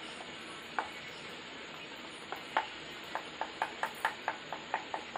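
A fork pricking holes all over a rolled pizza base, its tines tapping the wooden board underneath. A few scattered taps give way to a quick, even run of about four taps a second. The holes are made so the dough does not puff up while it cooks.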